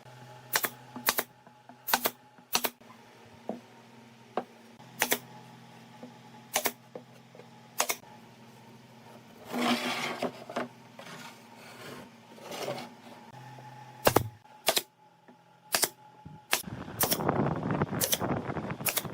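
Sharp knocks and clicks at irregular intervals, about fifteen in all. There is a brief scraping noise about ten seconds in, and a longer rasping noise in the last couple of seconds.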